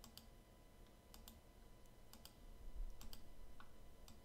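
Faint computer mouse clicks, mostly in quick press-and-release pairs, about once a second. A soft low bump comes a little before the 3-second mark.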